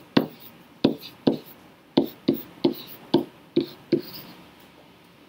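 Stylus tapping on a tablet screen while handwriting, about ten short, sharp taps at uneven intervals, stopping about four seconds in.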